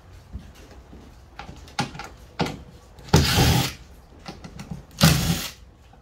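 Ryobi cordless impact driver running in two short bursts, about three seconds in and again near the end, backing out the screws of an old rod buckle. Light clicks and knocks of the tool being handled come between the bursts.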